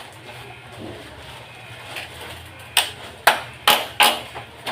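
Four sharp knocks of something hard being struck, each ringing briefly, coming quickly one after another in the second half over a low steady hum.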